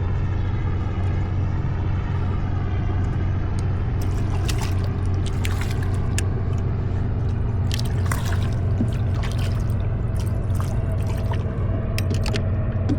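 A boat engine running with a steady low hum, while water splashes and drips and sharp clicks come irregularly in the second half as a fish is reeled in.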